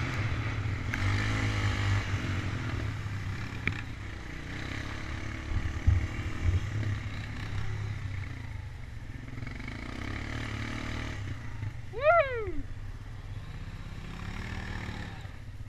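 ATV engine running steadily as the quad rides a bumpy dirt trail, with a few knocks about six seconds in. About twelve seconds in there is a short rising-and-falling cry.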